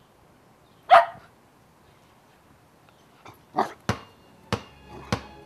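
A dog barks once, a short, loud yip about a second in. Over the last two seconds come a few sharp taps about half a second apart.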